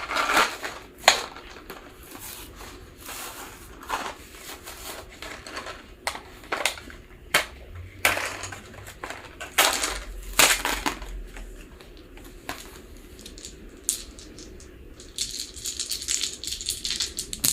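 Hands opening the packaging of a set of plastic polyhedral dice: crinkling and rustling of the wrapping with many irregular clicks and knocks, and a denser crackle of plastic near the end.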